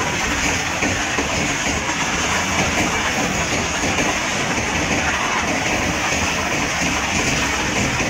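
Open-top freight wagons of a long train rolling past close by, with a steady noise of steel wheels running on the rails.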